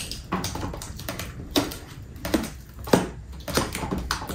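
Protective plastic film being peeled off a computer monitor, crackling in irregular snaps, with a few louder cracks in the middle.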